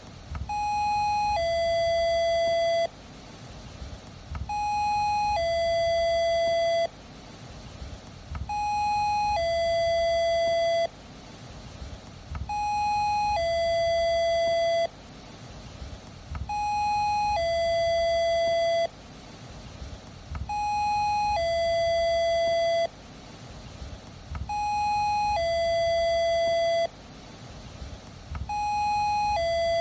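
Doorbell ringing its two-tone chime, a short higher tone then a longer lower one, each held steady and cut off sharply. It repeats about every four seconds.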